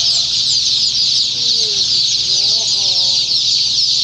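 Many day-old chicks peeping at once, a dense, unbroken chorus of high cheeping.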